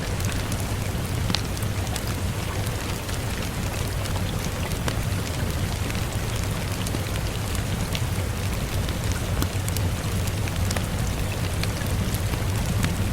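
Steady rain mixed with a wood fire crackling, with scattered sharp pops over an even hiss and a low rumble.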